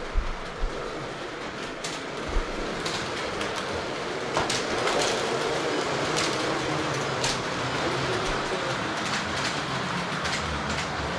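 Carrera Digital 1/32 slot cars running laps on plastic track: a steady whirring rumble of small electric motors and tyres on the track, with scattered sharp clicks.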